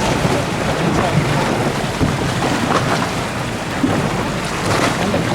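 Steady wind buffeting the microphone over the running noise of a dinghy under way on the water.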